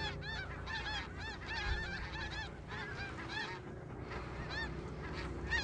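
A flock of snow geese calling: many high, arched honks overlap without a break.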